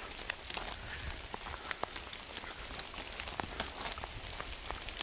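Steady rain in a downpour: a constant hiss with many sharp single drop hits scattered through it.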